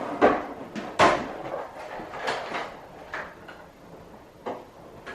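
A series of knocks and clatters, five or so spread about a second apart: kitchen items being handled and set down on a worktop as cake ingredients are laid out.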